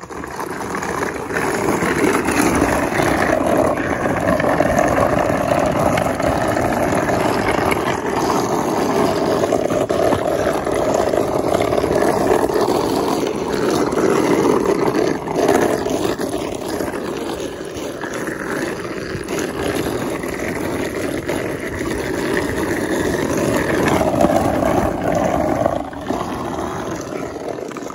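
Ball-bearing wheels of a carrinho de rolimã (soapbox cart) rolling fast down rough asphalt: a loud, continuous grinding rumble, picked up close to the wheels from on the cart.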